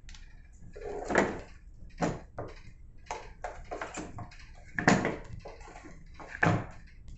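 A lifeboat's storage locker lid being shut and its turn-button fastener worked by hand: a string of hard clacks and knocks, the loudest about five seconds in and another about six and a half seconds in.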